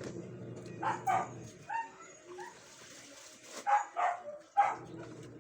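Short, sharp animal yelps: two about a second in, then three more between about three and a half and five seconds in, with softer short chirps between them.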